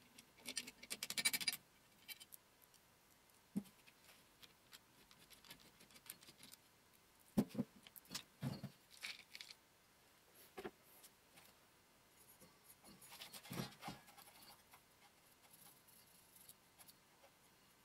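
Faint handling noises of metal parts: a quick run of light ticks near the start, then scattered clinks and knocks and a short scrape, as a motor mounting plate is worked loose from an old electric lathe motor and the parts are moved about on a metal bench.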